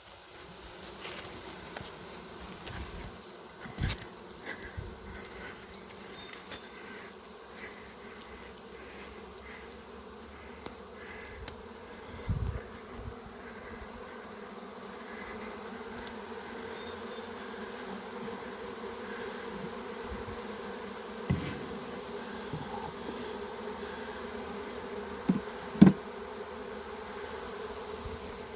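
A honey bee swarm in flight buzzing, a steady hum that grows a little louder about halfway through. A few short knocks stand out over it, the loudest near the end.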